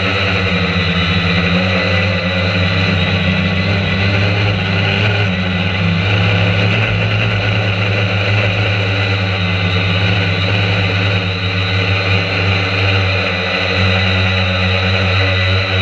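Quadcopter drone's electric motors and propellers buzzing steadily in flight, heard close up from a camera mounted on the drone, the pitch wavering slightly as it manoeuvres.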